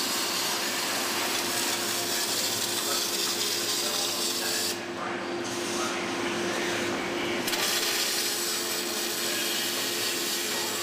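Robotic MIG welding arc: a steady crackling hiss with a constant hum under it. The highest part of the hiss drops away briefly about five seconds in and again for a second or so around seven seconds.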